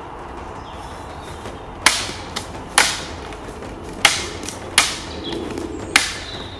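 Katana blade cutting through thick, tough-skinned bamboo in a quick series of strokes: five sharp cracks, the first about two seconds in, each cut off fast.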